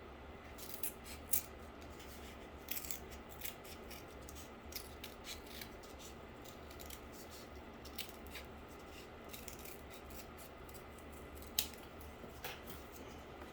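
Scissors snipping cardboard: a run of short, sharp snips at irregular intervals, two of them louder, about a second in and near the end.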